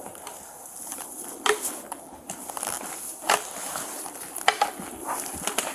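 Footsteps moving through forest undergrowth: several sharp cracks and snaps, about five in all, over a steady high hiss.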